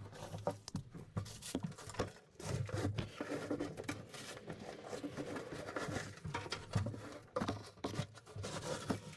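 Irregular rustling and crinkling with scattered clicks and light knocks as leaves, sticks and hurricane debris are pulled out by hand from a tight space.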